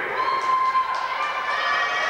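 Small wrestling crowd cheering and shouting, one voice holding a long yell for about a second.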